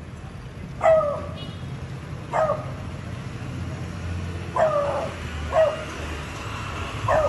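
Beagle barking: five short single barks spaced one to two seconds apart, over a steady low traffic rumble.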